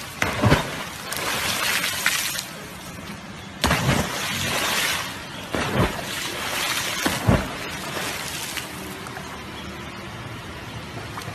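Dogs jumping off a boat's bow into a river, about four splashes a second or two apart, over a steady rush of water.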